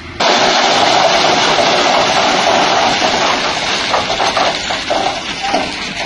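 A load of coarse crushed-stone aggregate tipping off a dumper truck's bed: a loud rush and rattle of tumbling stones that starts suddenly and then tails off over the last few seconds.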